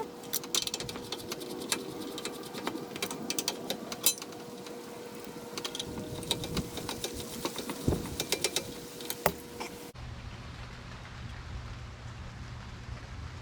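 Scattered clicks, taps and light knocks of small hard parts being handled and fitted by hand. About ten seconds in the sound changes abruptly to a low steady hum with only a few faint clicks.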